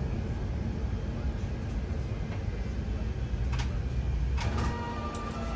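Steady low rumble inside an Airbus A380's cabin as the aircraft taxis after landing. About four and a half seconds in, it gives way to background music with held steady notes.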